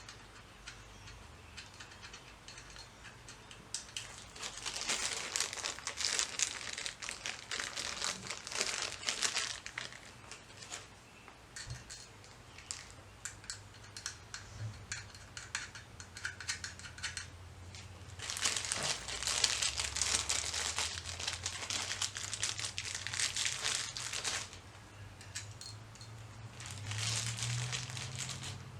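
Intermittent crinkling and rustling with small clicks, in three spells: from about four to ten seconds in, from about eighteen to twenty-four seconds in, and briefly near the end.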